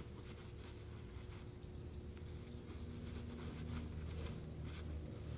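Faint rubbing and rustling of a paper towel wiping adhesive off the banjo fittings of a stainless-braided brake line, over a low steady hum.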